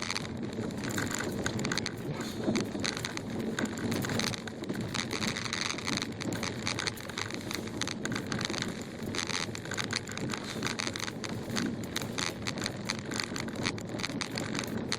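A car driving slowly through deep, rutted snow, heard from inside: the tyres crunch over packed snow with a steady rumble and many small crackling knocks throughout.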